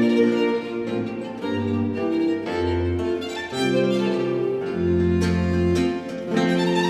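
Background music: bowed strings, a violin carrying the melody over lower strings, in slow held notes that change every second or so.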